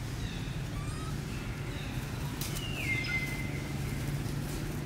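High-pitched animal calls: a few short chirps, then a longer call about halfway through that slides down in pitch and holds briefly, over a steady low hum.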